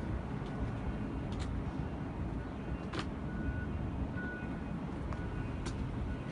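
Yutani YS750-2 excavator's diesel engine running steadily, with a few sharp clicks.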